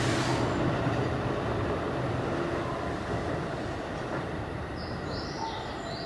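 Keikyu 600 series train running away down the line, its rolling rumble slowly fading. A hiss dies out in the first half second, and brief high squealing tones step up and down in pitch about five seconds in.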